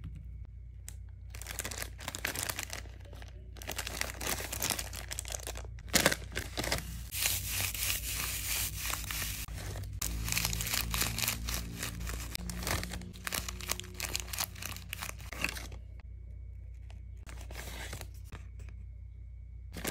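Clear plastic zip-lock bag and small plastic packets crinkling and rustling as hands handle them and take the packets out, in many short sharp rustles with a dense spell of rustling about seven to ten seconds in.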